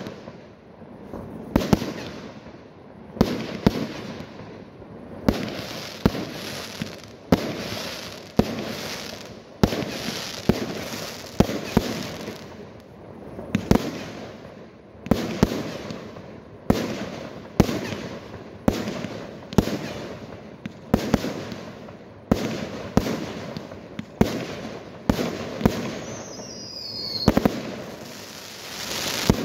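Aerial firework shells bursting in quick succession at a fireworks display, about one bang a second, each sharp bang trailing off. A couple of high falling whistles come near the end.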